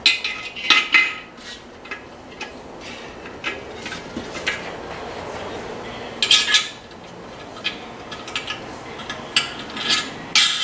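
Light metal clinks and rattles from the lid of a Weber Q1200 gas grill as it is opened and a lid thermometer is fitted and held in place with a wing nut, coming in short clusters near the start, in the middle and near the end.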